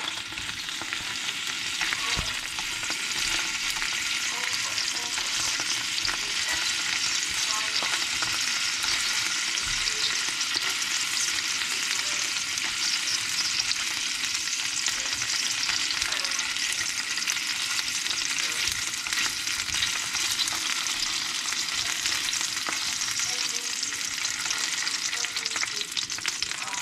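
Hot dogs frying in oil in a frying pan: a steady sizzle and crackle of hot fat, as they are turned now and then with tongs.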